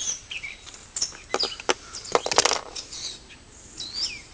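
Needle-nose pliers clicking and scraping as they ease rubber fuel line through the hole in a small-engine fuel tank, in a quick run of clicks about two seconds in. Birds chirp in the background.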